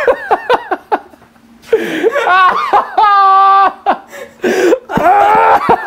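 A man laughing in exasperation at his own mistake: a quick run of laughs, then a long drawn-out groan about halfway through, then more laughter near the end.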